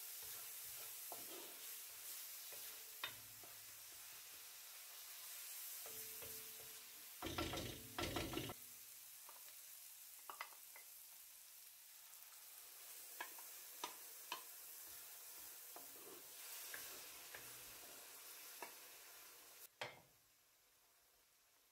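Onion and tomato sizzling faintly in a hot cast-iron pan as a wooden spoon stirs, scrapes and clicks against the pan. There are two louder bursts about seven to eight seconds in, and the sizzle drops away near the end.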